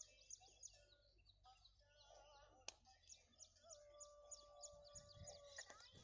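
Faint outdoor ambience of small birds chirping in quick, repeated high notes, with a long steady tone held for about two seconds near the end.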